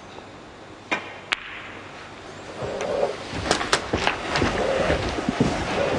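Two sharp clicks of snooker balls about a second in: the cue striking the cue ball, then the cue ball hitting an object ball. From about two and a half seconds in, the audience breaks into scattered clapping and crowd noise.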